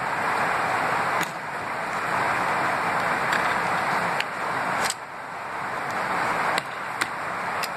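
A steady rushing background noise, with several sharp clicks as a small screwdriver pries at the digital camcorder's casing to lift the back cover off.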